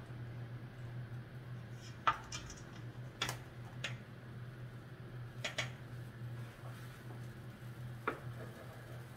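Spatula clinking and knocking against a stainless steel mixing bowl of batter, about six sharp clinks spread across a few seconds, over a steady low hum.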